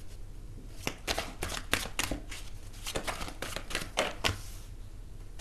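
A deck of tarot cards being shuffled by hand: a quick, uneven run of card slaps and flicks that starts about a second in and stops about a second before the end.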